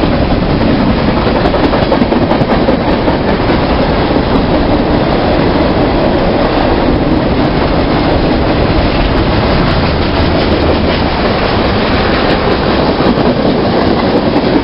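A train passing close by at speed, a loud steady rumble with its wheels clattering over the rail joints. It cuts off abruptly at the end.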